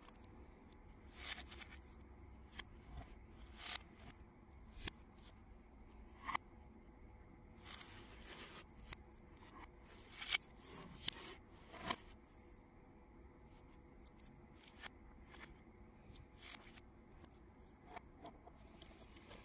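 Lego Technic plastic pieces clicking and snapping together as they are handled and pressed into place. Irregular sharp clicks, a dozen or so, with pauses between.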